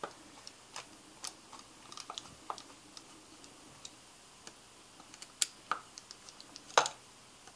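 Hand hex driver snugging up countersunk screws through a metal chassis plate: irregular light clicks and ticks of the tool bit in the screw heads, the loudest near the end.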